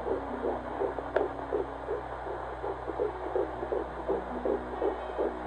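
Unborn baby's heartbeat picked up by a fetal heart monitor pressed to the pregnant belly: a fast, even pulsing, about four pulses a second, over a low steady hum.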